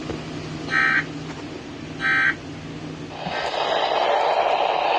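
Two short bursts of Emergency Alert System digital data tones, a high electronic warble, sounding as the end-of-message signal that closes the broadcast warning, over a steady low hum. About three seconds in, a loud hiss of noise starts.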